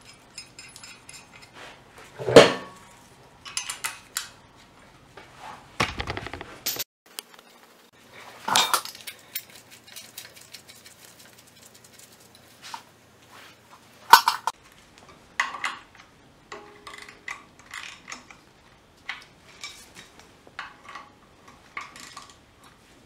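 Hand-fitting of a power steering reservoir bracket and its bolts on a V8 engine's timing cover: scattered metallic clinks and knocks, a few of them louder.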